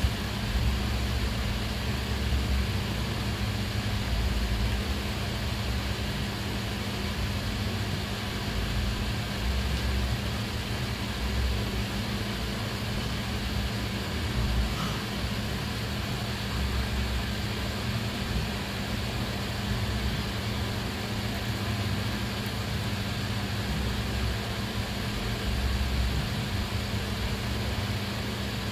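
A motor running steadily: a constant hum over a low rumble that rises and falls.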